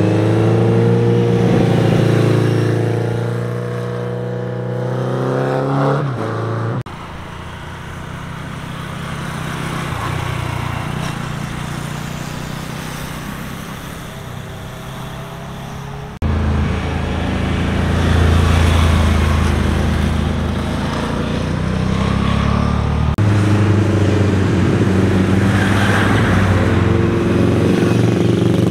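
Motorcycle engines passing one at a time through a hairpin bend, the pitch rising and falling as each rider accelerates and shifts through the corner. The sound changes abruptly three times, with a quieter, more distant stretch in the middle.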